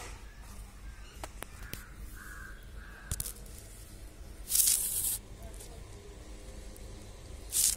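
Crows cawing outside, two short calls close together a couple of seconds in. About four and a half seconds in comes a loud brief rush of hissing noise, with a shorter one at the end, and a few small clicks.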